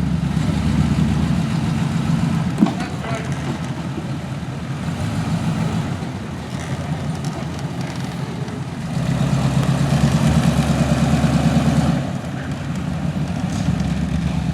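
A truck engine running low and steady during off-road manoeuvring, working harder for about three seconds past the middle before easing off again. A single sharp knock sounds about two and a half seconds in.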